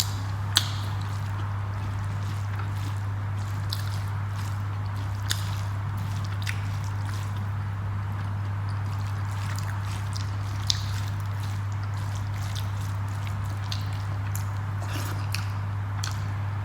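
Eating sounds: scattered small wet clicks and smacks of chewing rice, dal and pakoras, over a steady low hum.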